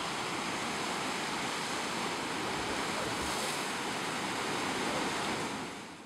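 Sea surf washing steadily, fading out near the end.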